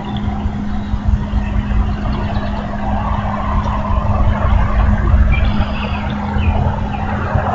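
Outdoor ambience on an eagle-nest camera's microphone: a constant low rumbling noise with a steady electrical hum under it, and a few short bird chirps about five seconds in.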